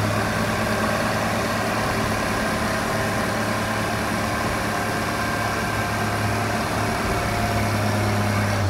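Engine of a heavy earth-moving machine scooping storm sand, running steadily with a deep hum and higher tones above it. Its note drops right at the end.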